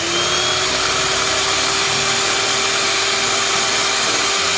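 Electric hand mixer running steadily at speed, its beaters whipping eggs in a bowl, with a steady motor whine over the whirr.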